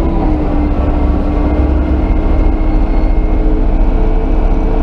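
Yuchai diesel engine of a front-end loader running steadily as the loader drives, a constant drone heard from inside the cab; the engine is still in its running-in period.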